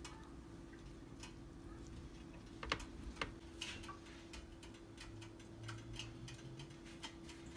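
Faint, irregular small clicks and light taps, the loudest a little under 3 seconds in, over a steady low hum.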